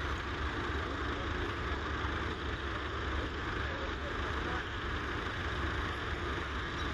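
Massey Ferguson 35's 2.3-litre four-cylinder diesel engine running steadily with a low, even drone.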